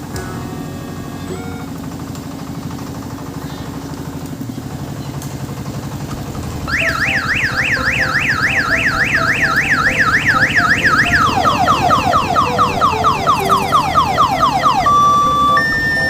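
Diesel engine of an odong-odong tour train running steadily. About seven seconds in, an electronic siren starts with rising sweeps about three a second, switches to quicker falling sweeps about five a second, then to alternating steady beeping tones near the end.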